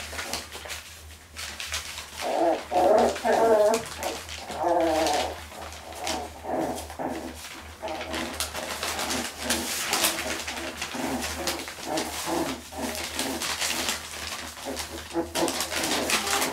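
Cotton de Tulear puppies play-fighting and vocalising: repeated short growls and whines, loudest between about two and five seconds in, over the scuffle of paws and fur.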